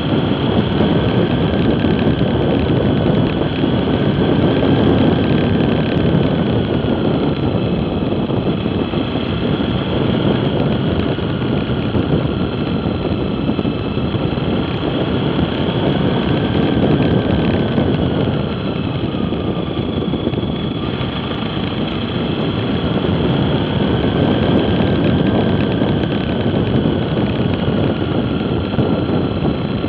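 Steady engine and wind/road noise from a vehicle cruising at about 55–75 km/h. A faint whine slowly rises and falls in pitch as the speed changes.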